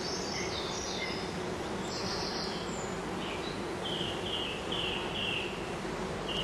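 Steady hiss under short, high-pitched chirps from a small animal, with four chirps in quick succession a little past the middle.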